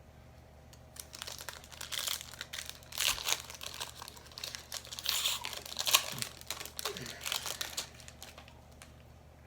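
Wrapper of a trading-card pack crinkling and crackling as it is handled and torn open, a dense irregular run of crackles from about a second in until near the end.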